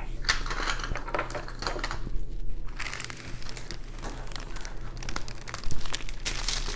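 Plastic crinkling and rustling as things are cleared off a diamond painting canvas, with scattered light clicks and taps and one louder knock near the end.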